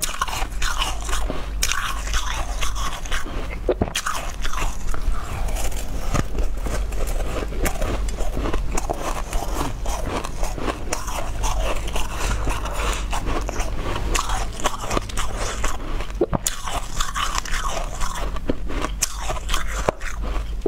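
Close-miked crunching and chewing of a mouthful of shaved ice: continuous crackling bites.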